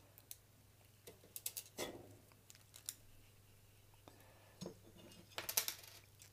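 Small clicks and taps of plastic spacers and a heat sink being handled against a sheet-metal case, coming in scattered groups, the loudest cluster about five and a half seconds in.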